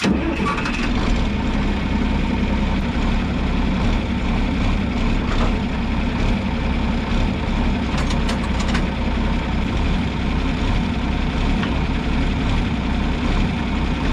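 Tractor engine running steadily at idle, with a few light clicks about eight seconds in.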